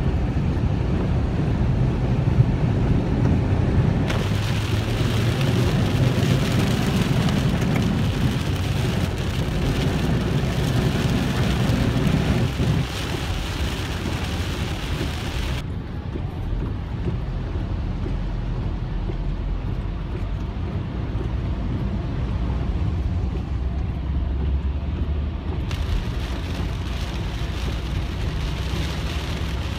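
Car driving through a rainstorm on flooded road, heard from inside the cabin: a steady rumble of engine and tyres, with a hiss of rain and water spray that comes in about four seconds in, drops away abruptly about halfway through, and returns near the end.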